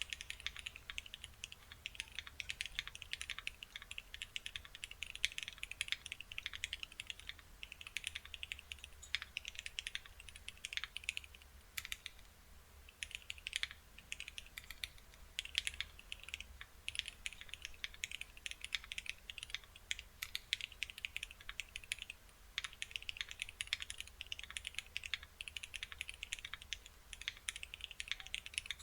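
Fast continuous typing on a custom mechanical keyboard, a Cannonkeys Bakeneko65 with a full FR4 plate and L&F JWK C Black linear switches. The key clacks come in quick runs, with a couple of short pauses.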